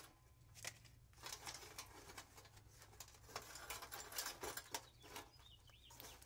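Faint rustling, scraping and light clicks of wires being pulled by gloved hands through the sheet-metal electrical panel of an air-conditioner condenser unit.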